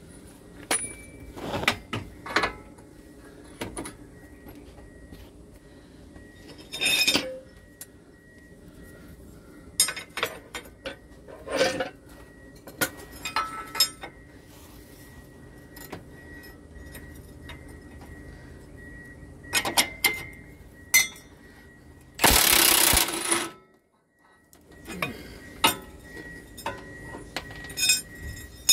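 Metal clicks and clinks of a combination wrench working the nut on a motorhome's rear shock absorber mount, over the steady hum of a road grader's diesel engine running behind. A loud burst of noise lasting about a second comes near the end.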